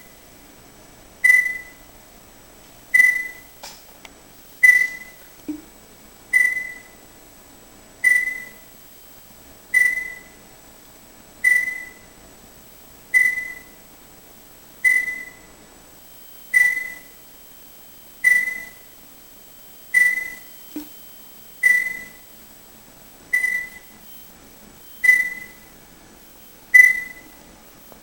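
PC speakers giving off an unexplained noise: a sharp click with a short, fading high ping, repeating evenly about every 1.7 seconds.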